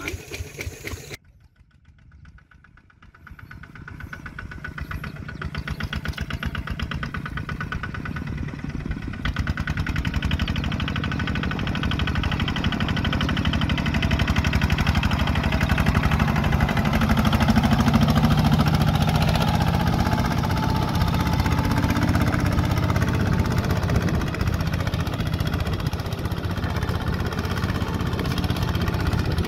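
Two-wheel walking tractor's engine running with a fast, even chugging. After a brief near-silence about a second in, it comes back and grows louder over the next fifteen seconds, then holds steady.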